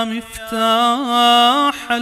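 A voice chanting an Arabic ziyarah prayer in a slow, melodic recitation. It draws out long held notes with small ornamental turns, moving into the word "miftah".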